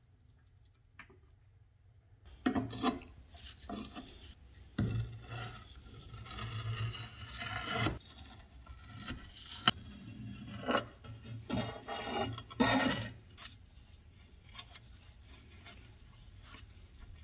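Adjustable wrench turning a rusty square nut off the cast-iron base of an 1800s tobacco cutter: metal clinks and knocks mixed with scraping and rubbing, starting about two seconds in and easing off near the end.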